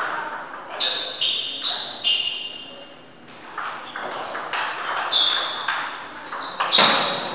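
Table tennis rally: the ball clicking off the rackets and pinging off the table in quick alternation, with a short lull midway.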